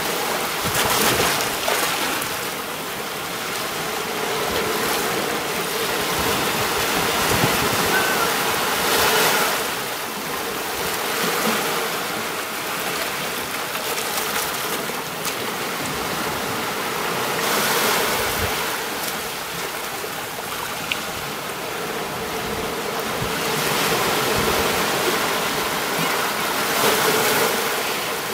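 Small sea waves breaking and washing up a beach, a steady surf hiss that swells about every nine seconds as each wave comes in.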